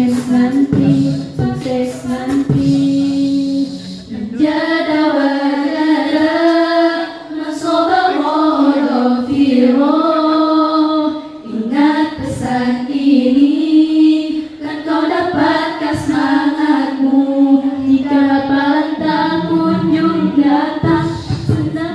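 A cappella nasyid sung by a group of girls' voices through microphones: a held low drone under a melody that moves up and down.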